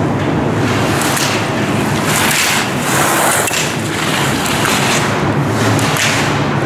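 Skis scraping over hard indoor snow through a run of slalom turns, in swells of hiss about every second, mixed with wind rush on the microphone of a camera skiing behind. A steady low hum runs underneath.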